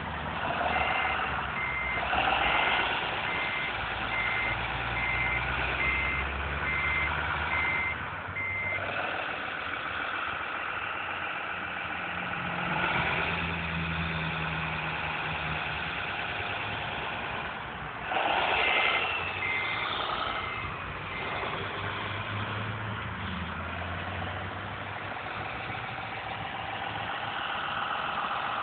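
Radio-controlled 1:14.5 scale Komatsu wheel loader working with its sound module running. A diesel engine sound revs up and down over the whine of the model's drive. A reversing beeper beeps steadily for the first nine seconds or so, then again briefly about two-thirds of the way in.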